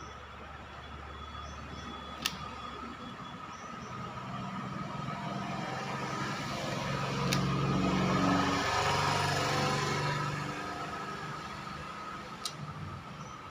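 A vehicle engine passing by, growing louder to a peak about midway and then fading away, with a few sharp clicks.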